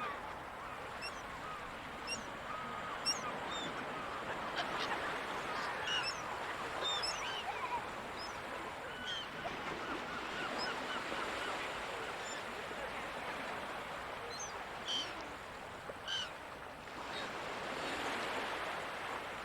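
A flock of seagulls calling over the ocean: many short, scattered cries overlapping, some louder and closer, over the steady wash of surf.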